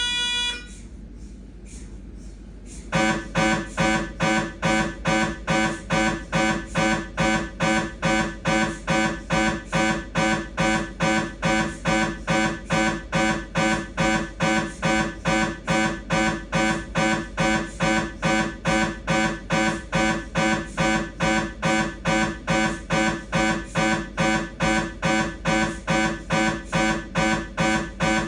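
Siemens MAGNETOM Lumina 3 T MRI scanner's gradient coils running a T2-weighted sagittal turbo spin echo sequence: a loud buzzing knock repeating evenly about twice a second, starting about three seconds in. Before that, a steady tone fades out in the first second and is followed by a short lull.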